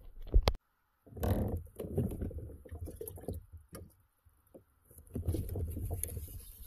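Handling noise on a fishing kayak: knocks, clatter and rustling as gear and the camera mount are handled and the angler moves and stands up. There is one sharp loud knock about half a second in.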